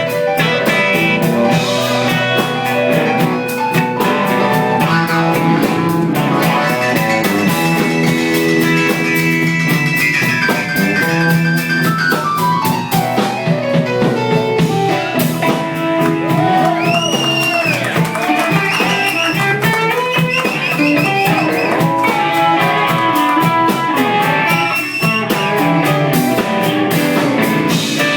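Live blues band playing, led by guitar with drums behind it. About ten seconds in a line of notes runs steadily downward, and a little later the lead bends its pitches up and down.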